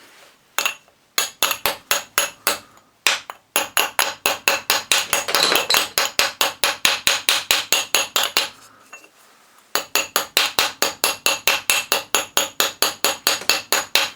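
Rapid light taps of a tiny round-headed hammer on the metal face of a starter solenoid, about four to five strikes a second with a metallic ring, peening the distorted surface back flat. The tapping comes in three runs, pausing briefly about three seconds in and again about nine seconds in.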